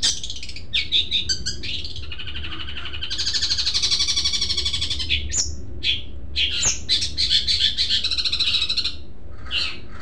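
Caged long-tailed shrike (cendet) singing a rapid, varied song of short chattering phrases. About three seconds in it gives a long unbroken trill.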